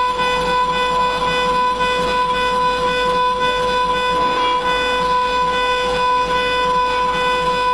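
Mini CNC router running while engraving a metal plate: a steady high-pitched whine that holds one pitch throughout, over a rough hiss of machining noise.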